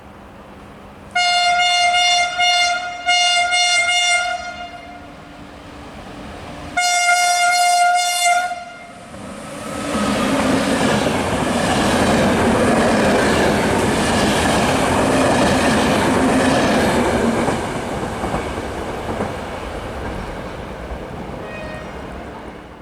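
Train horn sounding one steady note in two blasts back to back, then a third after a short pause, followed by the train passing close by with loud wheel and engine noise that eases off near the end.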